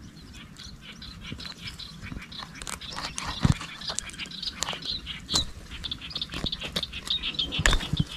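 Dry grass and reed stems rustling and crackling while a small caught fish is handled and the airgun dart is worked out of it, with many short clicks and snaps.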